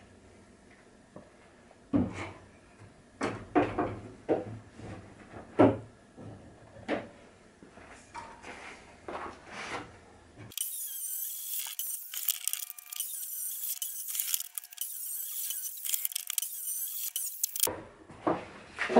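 Wooden strips and hand tools knocked and set down on a wooden workbench, about a dozen separate knocks and clatters. Then, for about seven seconds, a high-pitched chattering sound with a few short whistle-like tones; it starts and stops suddenly.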